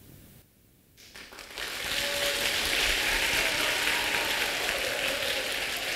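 A large group of children applauding together. The clapping starts about a second in after a brief silence and settles into a steady, dense patter.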